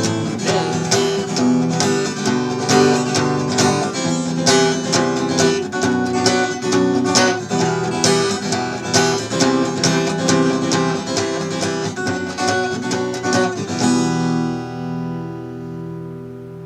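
Acoustic guitar strummed in a steady rhythm as the song's closing instrumental; about fourteen seconds in a final chord is struck and left to ring, fading out.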